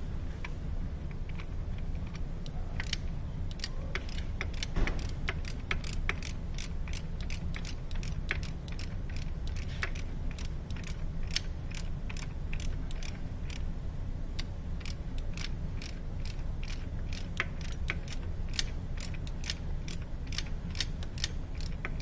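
Ratchet wrench clicking as it turns a new reverse light switch into a manual transmission case. The clicks are sparse at first and then come about two or three a second, over a steady low hum.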